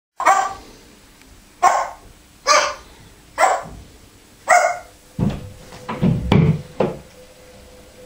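African grey parrot mimicking a dog's bark: five sharp barks about a second apart, then a quicker run of deeper barks between about five and seven seconds in.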